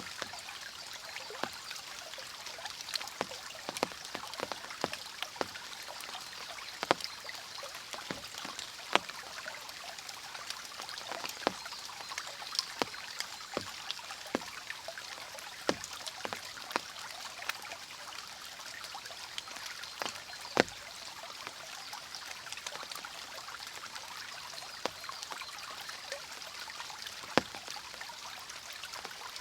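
Water trickling and flowing in a mountain stream, a steady hiss broken by many irregular drips and splashes, a few of them sharper and louder.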